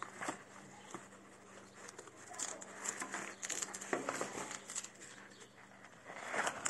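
Rustling, crinkling and light clicks as a fabric knee guard, its cardboard backing card and a paper booklet are handled, busiest in the middle, with a swelling scrape near the end.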